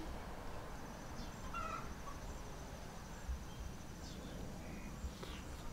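Outdoor garden ambience: an insect's thin, high, finely pulsed trill starts just before a second in and keeps going, with a few short faint bird chirps.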